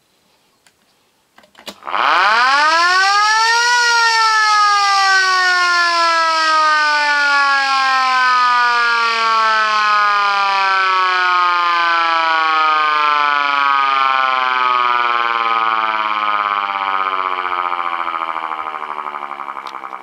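Helin VS1 electric motor siren switched on with a click about a second and a half in. It wails rapidly up in pitch for about two seconds, then winds down in one long, slowly falling wail as the rotor coasts down, fading near the end.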